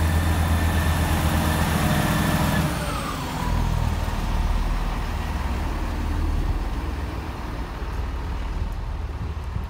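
Class 158 diesel multiple unit's underfloor engines running as it moves off along the platform. The engine note drops in pitch about three seconds in and becomes a lower rumble that slowly fades.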